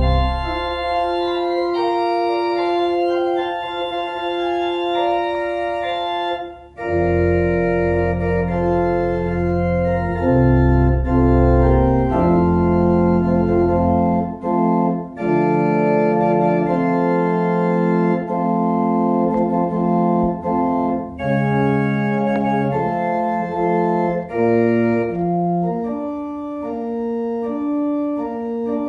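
Organ postlude: slow, held chords that change every second or two, with a deep bass line coming in about seven seconds in and dropping out about halfway through.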